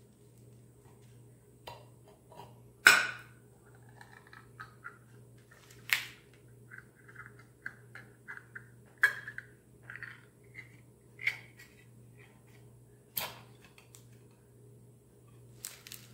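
Ring-pull lid of a small tin can being levered open with a kitchen knife: sharp metallic clicks and snaps a couple of seconds apart, the loudest about three seconds in, with short scraping squeaks of metal on the lid in between as the stuck lid is pried up.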